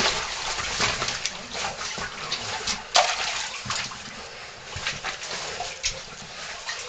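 Water splashing and sloshing in short, irregular splashes as people move through shallow stream water in a cave passage.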